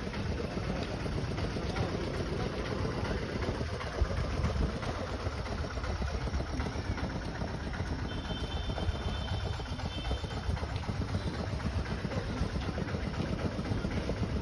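Steady low rumble of an open city street at night, like idling engines of nearby vehicles, with a single knock about four seconds in.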